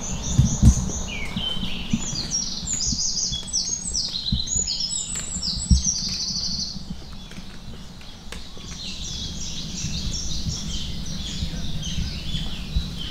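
Small forest birds chirping in quick runs of short, high notes, many overlapping, thinning out about two-thirds of the way through and then picking up again. Beneath them is a steady low rumble and a few dull thumps, the loudest near the start.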